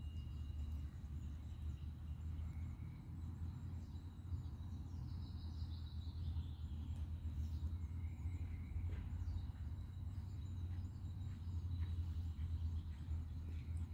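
Outdoor woodland ambience: scattered birds calling, among them a falling call about five seconds in, over a steady low rumble.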